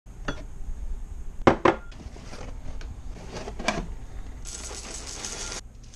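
A few sharp knocks and clatters of hard objects being handled, two of them close together about a second and a half in, then about a second of rustling near the end.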